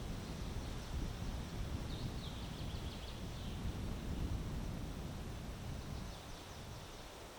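Wind gusting against the microphone as a low rumble, easing a little near the end. A small bird chirps a quick run of high notes about two seconds in, and briefly again near the end.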